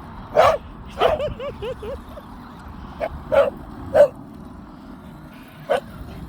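A dog barking: about six short, sharp barks spaced out over several seconds, with a quick string of high yips right after the second bark.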